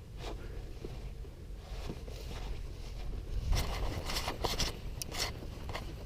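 Hikers' footsteps and rustling on the trail, with a flurry of crunching, scraping steps from about halfway through, over a low rumble.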